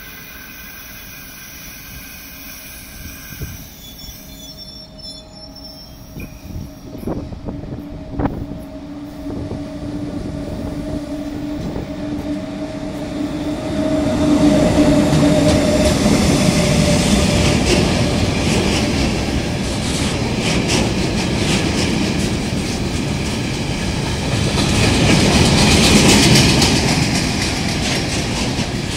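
Freight train hauled by two ÖBB class 1144 electric locomotives running through the station. A steady hum builds, then from about halfway in the train passes loudly, its wheels clattering over rail joints and squealing.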